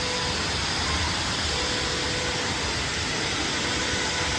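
Steady hiss of sandblasting, with a low rumble under it and a faint steady whine.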